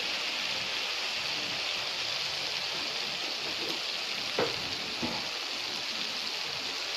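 Spice paste (masala) frying in oil in a kadai, a steady sizzle. Two soft knocks come about four and five seconds in.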